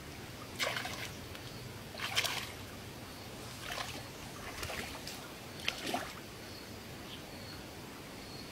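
Shallow muddy water splashing and sloshing in short bursts, five or six times, as feet wade into it.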